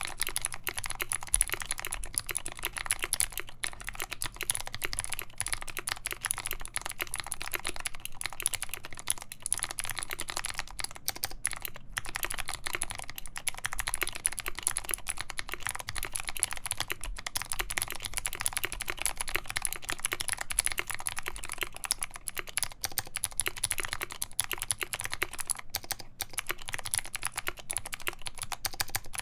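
Fast continuous typing on a KBD75v2 mechanical keyboard with a full brass plate, Kailh Speed Gold switches lubed with Krytox 205g0, and PBT keycaps: a dense, unbroken stream of key clicks and clacks.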